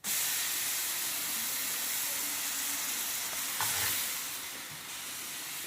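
Sizzling brownie: food hissing and spitting on a smoking-hot sizzler plate, starting suddenly and easing a little after about four seconds. There is a short knock about three and a half seconds in.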